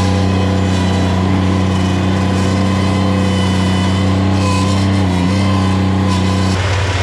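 An engine held at high revs, running steadily, with a brief dip about five seconds in and a change in its note near the end.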